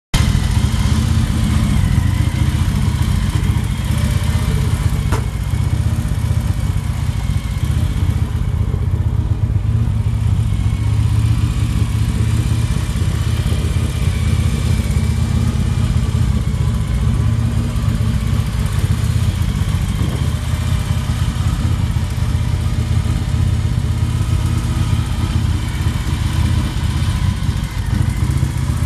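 2006 Victory Touring motorcycle's 1,507 cc V-twin engine idling steadily.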